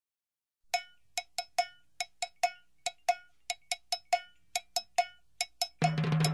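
Music intro: a single pitched percussion instrument plays short, ringing hits in a quick, uneven rhythm, about three or four a second. Near the end the full backing track with bass and drums comes in.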